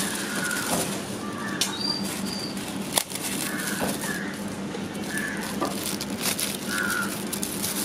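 Aluminium foil crinkling and rustling as hands press and fold it over the mouths of clay pots, with a sharp click about three seconds in.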